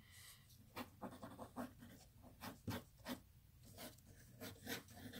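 Pencil drawing on a sheet of paper: a run of short, faint strokes, about three a second, each a brief rasp of lead on paper.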